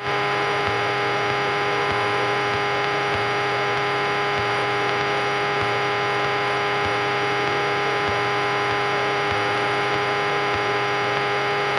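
Steady drone of a Cessna 172's engine and propeller in level flight, heard as an even hum with many fixed tones over a hiss.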